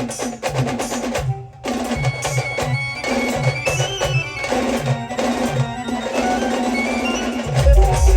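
Live band music: drums keep a steady beat under a held melody, with a brief break about one and a half seconds in. Near the end, louder, heavier bass drum beats come in.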